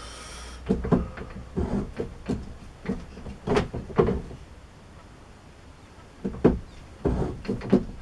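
Irregular clunks and clacks of hand broaching on a lathe, the broach worked through the sleeve a little at a time, with a short hiss right at the start and a quieter spell about halfway.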